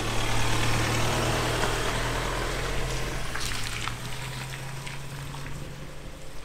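Car engine running with a steady low hum as it pulls away, under a hiss of tyres on a wet road. The engine hum fades about four seconds in, and there are a few sharp clicks around the middle.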